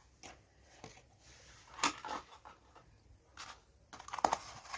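Scattered light clicks and knocks of objects being picked up and set down by hand, with the loudest knock a little under two seconds in and a quick run of clicks near the end.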